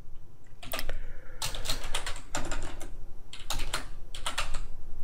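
Typing on a computer keyboard: short runs of quick key clicks with brief pauses between them.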